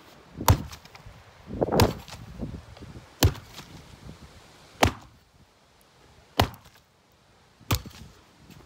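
Axe chopping old wooden boards: six sharp strikes, about one every second and a half.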